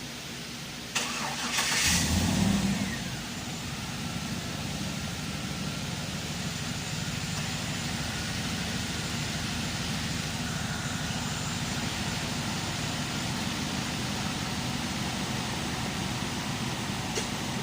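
A vehicle engine starting: a click about a second in, a brief loud burst as it cranks and catches, then it settles into a steady idle.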